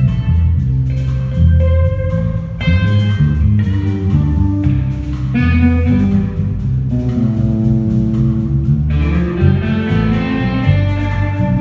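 Rock band playing live during a soundcheck: guitar over a strong bass line, at a steady level.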